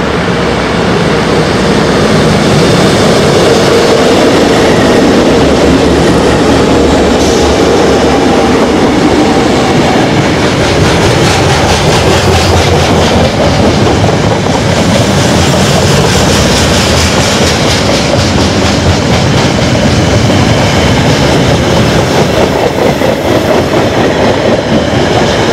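A long freight train passing close by at speed. Four KiwiRail DL-class diesel-electric locomotives go by first, then a long string of container and tank wagons rolls past with a steady roar and rapid, regular wheel clicks.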